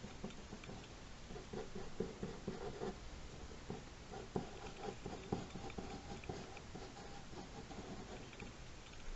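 Pencil scratching across paper in short, irregular sketching strokes, with a few sharper ticks.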